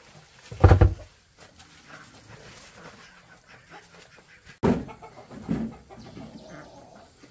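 Chickens clucking: a short loud call about a second in, then another run of calls a few seconds later.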